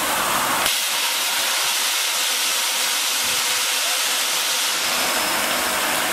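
Automated aluminium die-casting cell running: a steady, loud hiss of air, with the low machine hum beneath it dropping away from about a second in to near the end.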